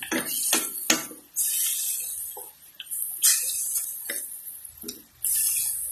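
Wooden spatula stirring and scraping pieces of pork around a metal pan, with short knocks against the pan and stretches of sizzling as the pork sautés with the onion, garlic and tomato before any water is added.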